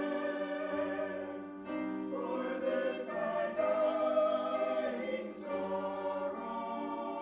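A choir singing a slow hymn in held chords, moving to a new chord every second or two.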